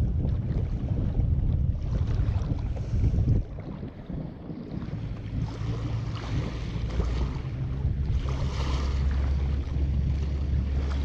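Wind buffeting the microphone beside a lake, with water lapping at the shore. The wind dies down briefly a little after three seconds in, and a low steady drone sits underneath from about five seconds in.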